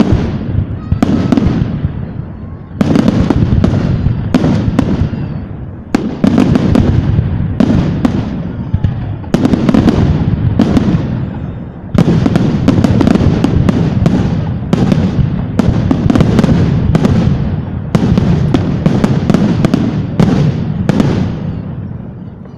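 Fireworks exploding in rapid succession, many sharp bangs and crackles with rumbling echoes, fading away near the end.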